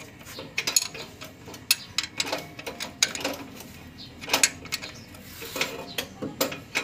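An open-end wrench clinking against a bolt and the timing-end metal of a Mitsubishi 4D56 engine as it is worked back and forth on the bolt: a run of sharp, irregular metal clicks and clinks.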